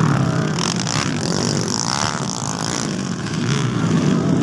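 Motocross dirt bike engines running and revving on the track, their pitch rising and falling.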